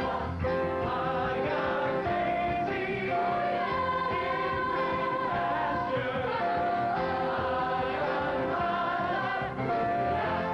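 A chorus of voices sings a show tune together over instrumental backing, holding long notes.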